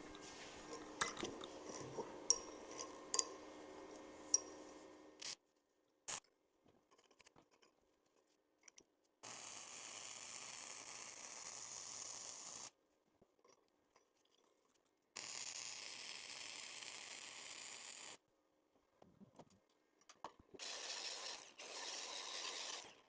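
Light metal clinks and knocks for the first few seconds, then a Harbor Freight Titanium Flux 125 flux-core welder running .035 flux-core wire on quarter-inch steel plate: the arc's steady hiss comes in three runs of about three seconds each, the first about nine seconds in.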